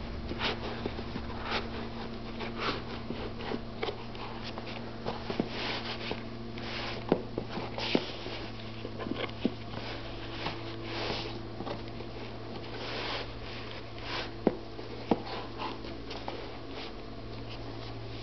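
Hands working the insole and laces of a DC Pure XE sneaker: rustling and scraping as the insole is lifted and pushed back and the laces are tucked under it. A few sharp clicks come about seven, eight, fourteen and fifteen seconds in, over a steady low hum.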